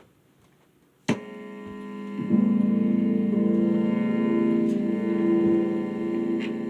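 Electric guitar played through an overdrive for a tone test: a chord struck about a second in, then another about a second later that rings on and sustains.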